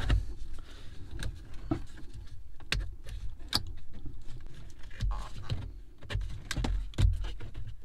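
Plastic dashboard trim of a Mercedes W203 clicking and knocking as the centre air-vent panel is worked into its opening by hand: scattered sharp clicks and dull thumps.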